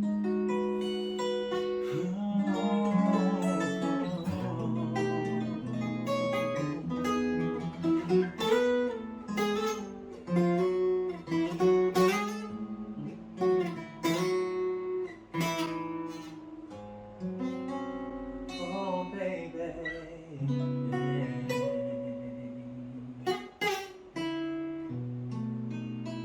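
Acoustic guitar playing an instrumental passage: plucked and strummed notes ringing over a bass line, starting suddenly.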